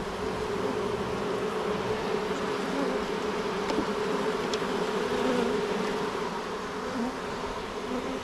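Honeybees buzzing over an open hive, a steady hum of many wings from the colony.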